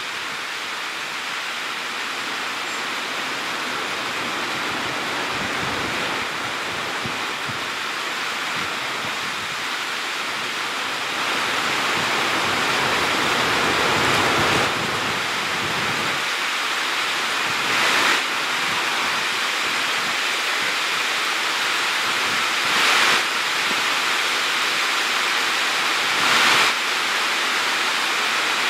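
Steady rushing noise, a little louder from about eleven seconds in, with a few short swells near the end.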